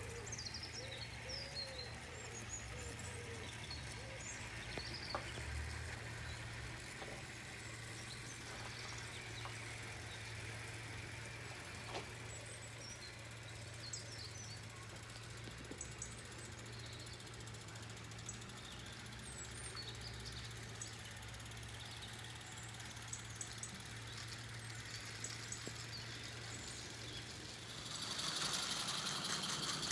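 Birds chirping over a steady low hum. About two seconds before the end, a small garden-scale model locomotive and its train pass close by with a loud rushing hiss.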